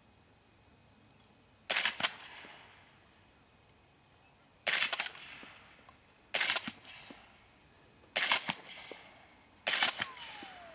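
Five shots from a suppressed .300 Blackout AR-15, fired at uneven intervals of one and a half to three seconds. Each shot is followed a fraction of a second later by a second sharp report, which fits the bullet striking the heavy hanging steel plate. After the last shot there is a falling whine.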